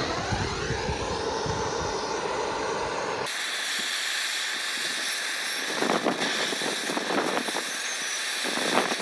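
Gas blowtorch flame hissing steadily, playing on a small heap of TCCA and aluminium powder that does not ignite. For about the first three seconds there is a rougher, lower rumble, which then cuts abruptly to a brighter, even hiss with a few short swells.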